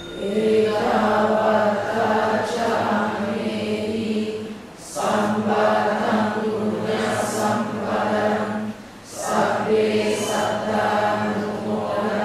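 Congregation chanting together in unison on a near-steady pitch, in three long phrases with short breaks between them, about five and nine seconds in.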